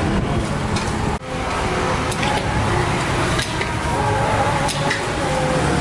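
Metal spatula clicking and scraping against a wok as fried rice is stir-fried, a stroke about every second, over a steady haze of background voices and street noise.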